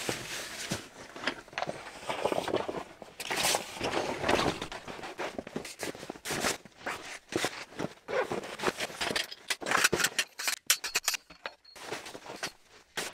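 Fabric bedding being handled and spread out on a snow-covered tent floor: rustling and scraping in irregular bursts, with a run of quick sharp clicks near the end.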